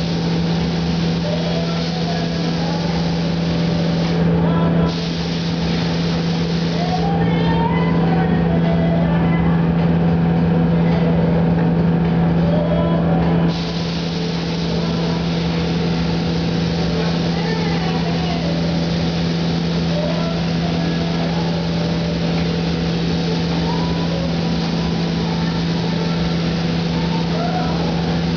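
Steady air hiss of a gravity-feed spray gun laying clear coat over the steady hum of the paint booth's air flow.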